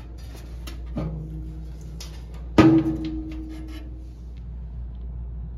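Two metallic clunks from a heavy blower motor in its sheet-metal blower housing being handled and set down on a tile floor. The second is the louder, and each is followed by a short ringing of the metal.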